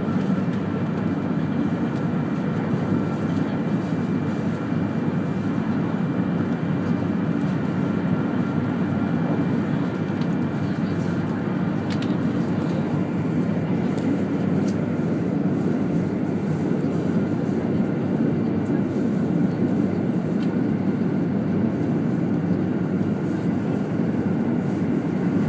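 200 series Shinkansen train running steadily, heard inside the passenger cabin: an even low rumble with a faint steady high whine.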